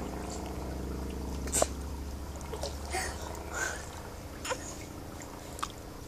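Small splashes and slaps of water as a toddler paddles in a swimming pool, the sharpest about a second and a half in, over a steady low hum that fades about halfway through.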